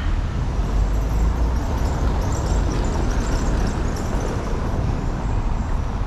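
Street ambience: a steady rumble of road traffic.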